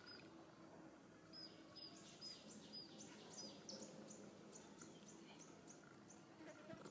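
Faint, short, high-pitched bird chirps repeated every half second or so, followed by a quicker run of fainter high chirps, over low background hiss.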